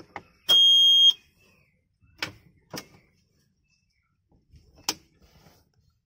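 A Gearsix rearview-mirror display player gives a single high electronic beep, a little over half a second long, as it is switched on. Three short sharp clicks follow.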